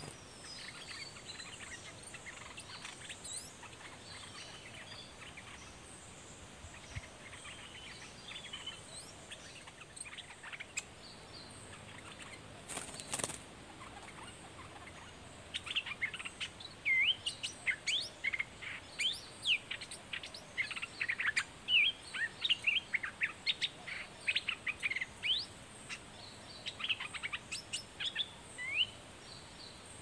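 Bulbuls calling: a caged bird and a wild one at the cage trading quick, excited chirps. The calls are sparse and faint at first, then from about halfway turn loud and dense, many short sweeping notes in rapid succession, for about thirteen seconds.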